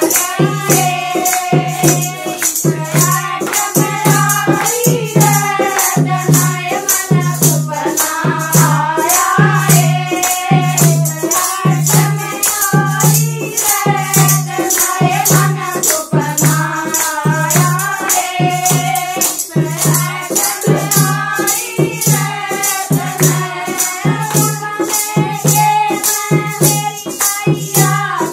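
Group of women singing a Haryanvi Navratri devotional bhajan together, over a dholak keeping a steady beat and hand rattles shaken in quick even strokes.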